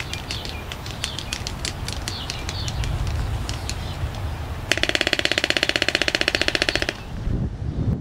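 Waved albatrosses bill-fencing in courtship, their bills clacking together in irregular sharp clicks. Just past halfway comes a rapid rattling clatter of about two seconds.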